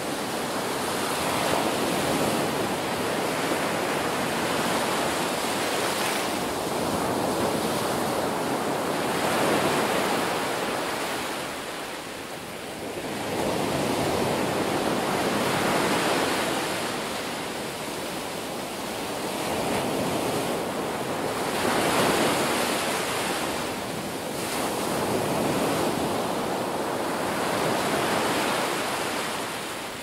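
Small ocean waves breaking and washing up on a sandy beach, a steady hiss of surf that swells and eases every several seconds.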